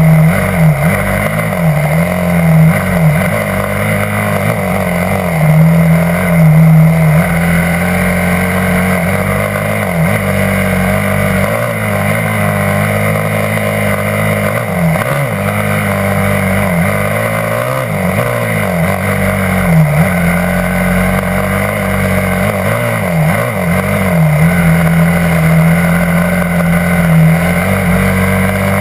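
Yamaha YZ250F four-stroke single-cylinder dirt bike engine heard from on board, running steadily at trail speed. The revs dip and come back up every few seconds as the throttle is eased and reopened.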